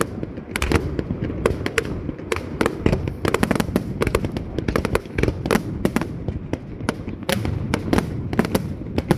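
Fireworks display with aerial shells bursting in rapid succession: several sharp bangs a second over a steady low rumble.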